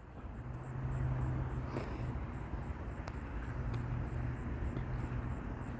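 A motor vehicle's engine running, a low steady hum that comes in about half a second in, over outdoor background noise.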